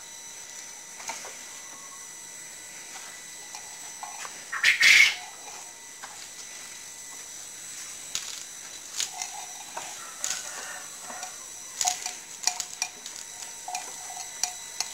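Bull eating green fodder from a trough: a scatter of crisp crunching clicks through the second half. About five seconds in there is one short, loud burst of rushing noise.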